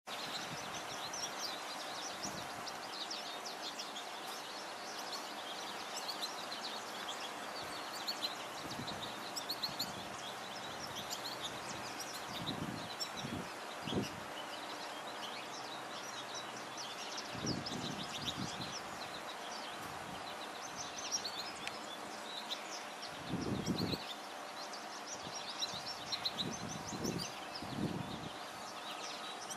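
Outdoor ambience full of short, high bird chirps and tweets, over a steady background hiss with a faint constant hum. A few short low rumbles stand out, the loudest about four-fifths of the way in.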